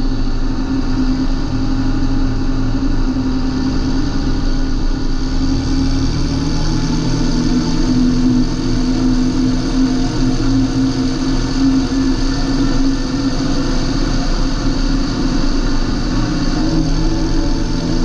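John Deere 8320 tractor's six-cylinder diesel engine running steadily, with a slight shift in its note about five seconds in.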